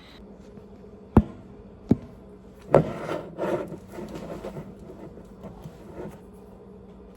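Objects being handled on a hard surface: two sharp knocks, then a clatter and some scuffling, with a few light taps after, over a low steady hum.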